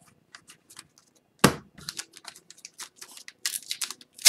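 Hockey trading cards being handled and flicked through by hand, a run of small clicks and snaps with a sharp snap about a second and a half in. Near the end, the crinkle of an Upper Deck Series 1 retail pack wrapper being peeled open.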